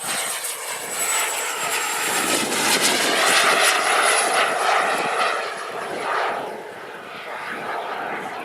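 Small gas turbine of a radio-controlled model jet flying past: a high-pitched whine over a jet rush. The sound builds to its loudest three to four seconds in, then fades.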